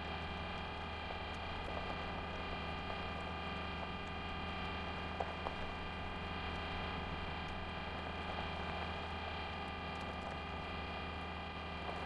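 Steady machine hum made of several even, unchanging tones, with a few faint clicks: a sound effect for the Curiosity rover's motors.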